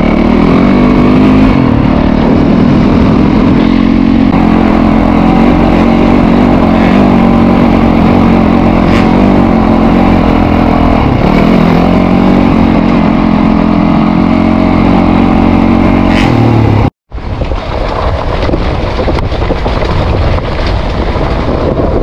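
Dirt bike engine running under way, heard from on the bike, its pitch rising and falling with the throttle. About 17 s in the sound drops out for an instant and comes back quieter and rougher.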